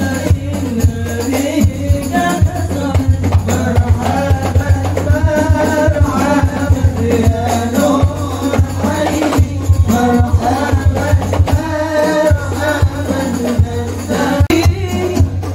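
Young men singing Islamic sholawat together into microphones over a PA, with hand percussion and jingles beating along quickly and steadily.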